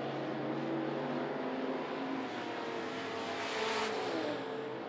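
Dirt-track late-model race car engines running at racing speed with a steady pitch. About three and a half seconds in, a car passes close with a brief louder rush of engine and tire noise.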